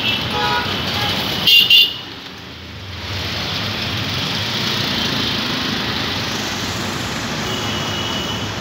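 Road traffic running steadily, with two short, loud, high horn toots about a second and a half in and a fainter horn near the end.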